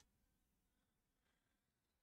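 Near silence: the sound track drops to almost nothing.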